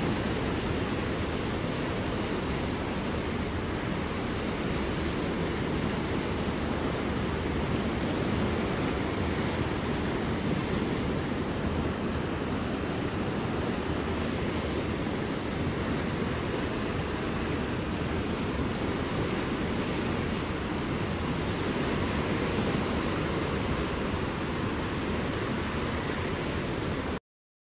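A river in full flood rushing past: a steady noise of fast, churning floodwater, heaviest in the low range. It cuts off abruptly near the end.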